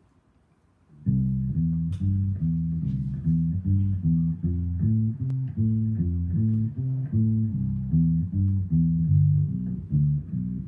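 Bass ukulele plucked in a steady bouncing bass line, about two notes a second alternating between low pitches, starting about a second in.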